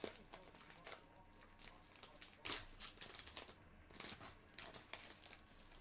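Crinkling and rustling of trading-card packaging and cards being handled, in irregular short bursts, the loudest about two and a half seconds in.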